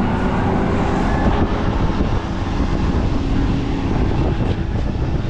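Boat engine machinery running steadily: a loud, even rumble with a faint steady hum over it.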